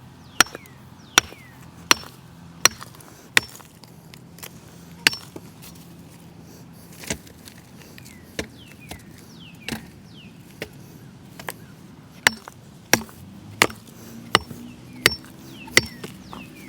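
Old broken rocks being smashed into crushed rock for drainage, each blow a sharp crack. The blows come a little faster than one a second at the start and again near the end, with slower, more scattered strikes in between.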